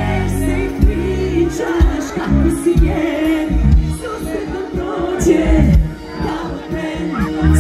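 Live Serbian pop-folk music played loud by a band with bass and drums, and a woman singing into a microphone over it.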